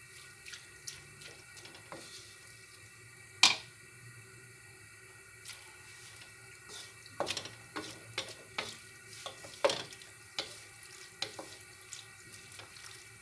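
Two wooden spatulas scraping and knocking against a metal wok while tossing noodles in sauce, in irregular taps and clicks. There is a sharp loud knock about three and a half seconds in and a busier run of taps about halfway through.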